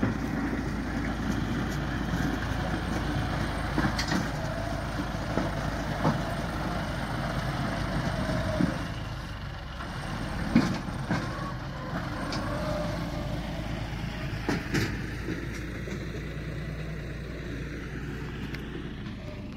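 John Deere 5210 GearPro tractor's diesel engine running under load as it pushes soil with a front dozer blade, with a few short knocks spread through.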